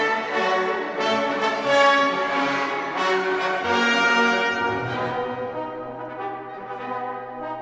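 Orchestral background music with brass, getting somewhat quieter in the second half.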